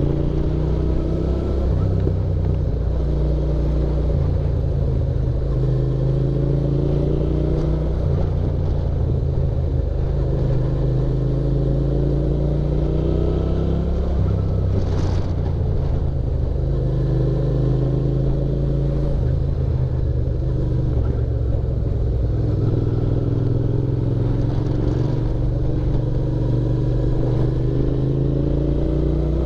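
Motorcycle engine running while riding, its note rising several times as it pulls away, under a heavy low rumble of wind on the helmet-mounted microphone.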